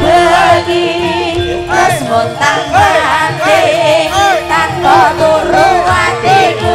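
Javanese gamelan ensemble playing, with a woman singer's wavering, ornamented voice over the gongs and drums.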